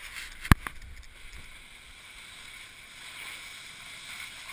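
Snowboard sliding over packed snow: a steady scraping hiss, with a sharp knock about half a second in and a smaller one just after.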